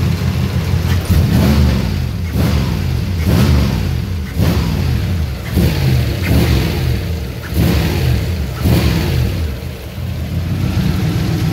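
Turbocharged Toyota engine in a Nissan S13 being revved in a series of quick throttle blips, about one a second, each rising and falling back, then settling to a steady idle near the end. It revs cleanly after a cleaned idle air control valve, fresh plugs and fresh gas cured its rough running.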